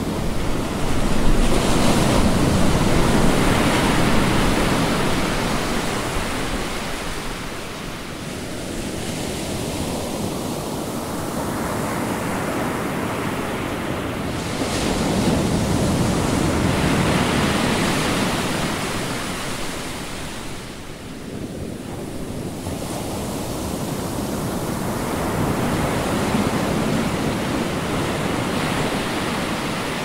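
Sea waves breaking and washing up a sandy beach: three long surges of surf that build and fade, the loudest a couple of seconds in.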